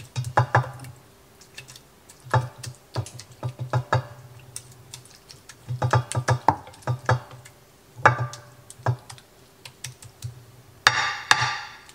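Glass mason jar and a utensil knocking and clinking against a glass casserole dish as salsa is scraped and tapped out, in several quick clusters of clicks with pauses between. Near the end comes a short rustle of a plastic tortilla bag.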